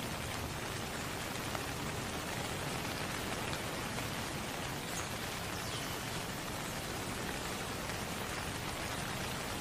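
A steady, even hiss like falling rain, with no other sound standing out.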